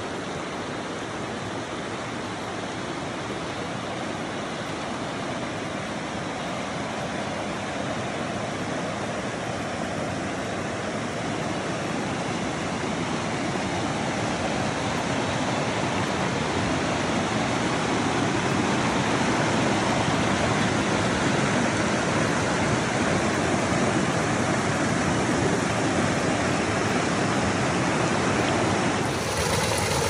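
Shallow stream water rushing over rock slabs and small cascades, a steady rush that grows gradually louder through the first half. Near the end it gives way to water pouring down a narrow rock chute.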